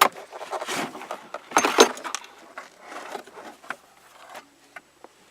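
Scattered clicks, knocks and short scraping or rustling sounds as parts are pulled and handled in a scrapped car's interior. The loudest scrape comes a little under two seconds in.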